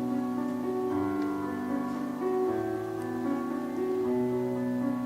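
Slow, gentle piano music, with sustained notes and chords changing about once a second.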